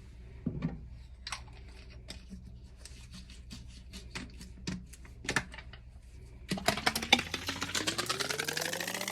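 Scattered light clicks and taps of things being handled on a kitchen counter. About six and a half seconds in, liquid starts pouring into a plastic bottle with a dense splashing rush, and its tone rises steadily in pitch as the bottle fills.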